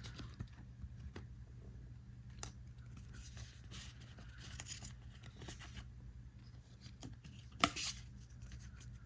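Trading cards being handled and flipped through, soft rustling and scraping of card stock and pack wrapper, with one sharper snap about three-quarters of the way through.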